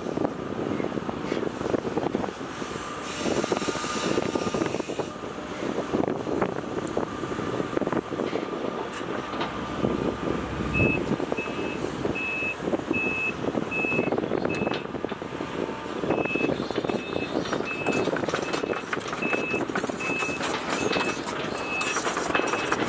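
Case CX130D long-reach excavator working, its diesel engine running under load with the hydraulics moving the boom and bucket. About eleven seconds in, a high-pitched reversing-style alarm starts beeping about twice a second, stops briefly, then carries on.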